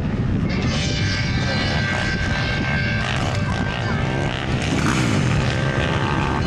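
Several 90cc youth racing ATVs running hard, their small engines revving, with the pitch rising and falling as they accelerate and back off.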